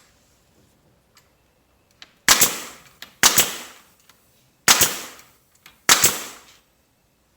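Four loud, sharp bangs at uneven intervals of about a second, each a doubled crack followed by a short ringing tail.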